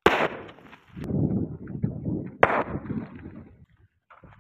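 Two firecracker bangs set off inside a termite mound, about two and a half seconds apart, the first right at the start.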